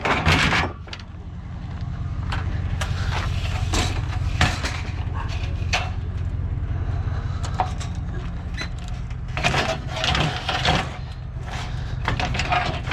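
Vehicle engine idling steadily, with scattered knocks and clatter of scrap being handled and loaded onto a trailer, busier about ten seconds in.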